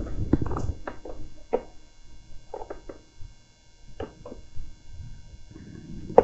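Handling noises from working on a mobility scooter's tiller: scattered light clicks and knocks, several close together in the first second and a half, then a few more spaced out.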